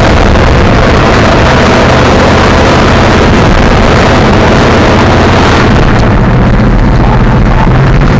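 Show truck's engine running loud as it drives, the recording overloaded by the noise throughout; the high hiss falls away about six seconds in while the low engine note carries on.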